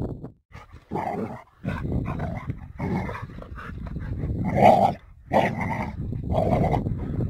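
A dog growling in a run of rough bursts, the loudest about two-thirds of the way in, as it goes for a rake being dragged through sand, with the rake tines scraping the sand underneath.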